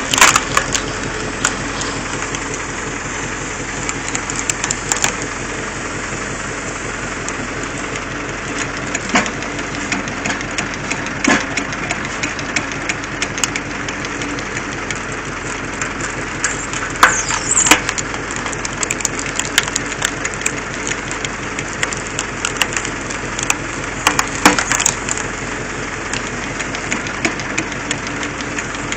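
Engine running steadily, driving a screw-cone log splitter through its shaft, with several sharp cracks and snaps as a log is forced onto the spinning threaded cone and splits apart.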